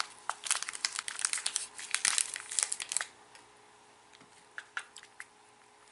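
Plastic snack wrapper crinkling as it is handled and opened, dense for about three seconds and then stopping, leaving a few faint ticks.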